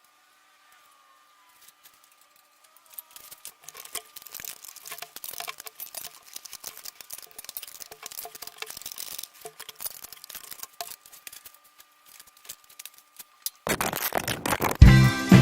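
Faint, irregular small clicks and rustling of hand work on a car's engine parts during a spark plug and ignition coil replacement. Loud music starts near the end.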